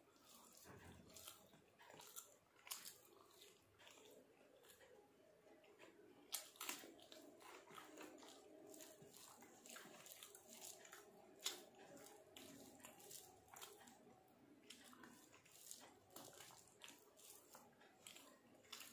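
Faint chewing and mouth sounds of a person eating rice by hand, with scattered sharp clicks and smacks, the loudest about six and eleven seconds in.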